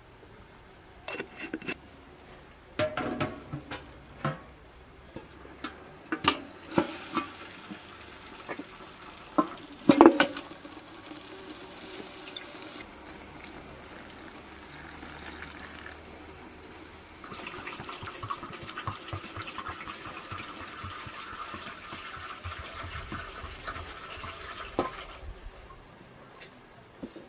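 Hands mixing flour in a stainless steel bowl, with scattered knocks and clinks against the bowl over the first ten seconds, the loudest about ten seconds in. Later, water is poured from a jug into the flour as it is worked by hand, a steady pouring rush that lasts several seconds.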